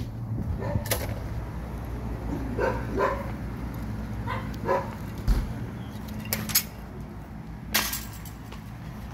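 Shelter dogs barking a few times, short and spaced apart, over a steady low hum, with a few sharp clicks or knocks near the end.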